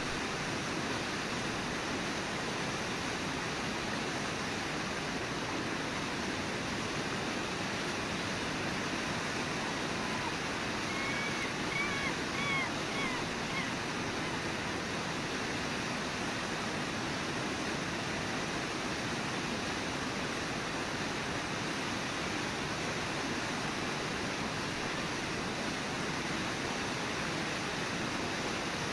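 Steady rush of a river waterfall, with a short run of faint high chirps about twelve seconds in.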